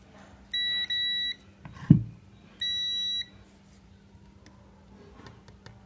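Digital multimeter's continuity beeper (UNI-T UT33L) sounding twice, each steady high beep lasting under a second, which signals a closed circuit between the test probes. A single knock falls between the two beeps.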